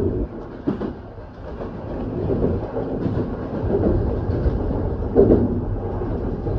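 E235-series Yamanote Line electric commuter train running, heard from inside the driver's cab: a steady rumble with a couple of sharp knocks from the wheels and track.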